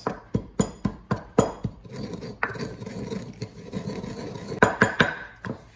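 Wooden pestle pounding stock cubes in a wooden mortar: sharp knocks about three a second, a stretch of grinding and rubbing in the middle, then a few more knocks near the end.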